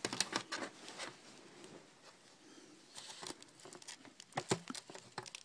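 Light scattered clicks and taps with faint rustling as a disassembled LCD monitor's screen panel and metal-shielded main unit are handled and turned over, quietest in the middle and with a few sharper clicks near the end.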